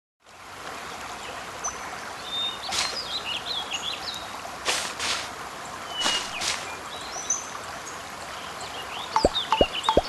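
Nature ambience of running water with small birds chirping, with brief rushes of water, and three quick falling plops near the end.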